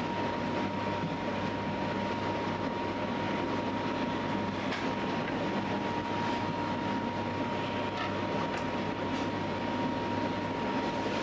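Electric dough-kneading machine running steadily, a constant mechanical hum with a thin steady whine over it, as its hook works barley dough in a steel bowl. A few faint knocks come through now and then.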